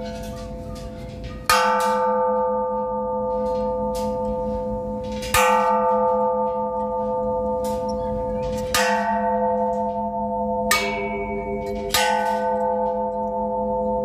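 Large hanging metal temple bells struck five times. Each strike rings on with a long, wavering hum and overlaps the last. The fourth strike, about two-thirds of the way through, has a different pitch, as from another bell.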